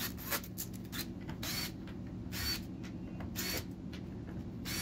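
Cordless drill-driver backing out the screws that hold a 3D printer's X rail to its Y rail, in short bursts about once a second, some with a thin high whine, over a steady low hum.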